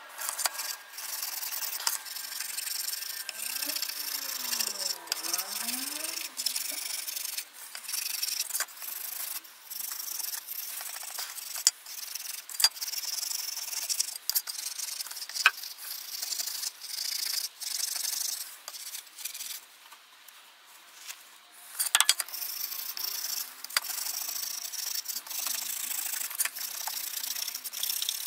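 Wire wool rubbed in quick scratchy strokes over a hammered aluminium sheet, scouring black spray paint off the raised dimples, with a brief pause about 20 seconds in.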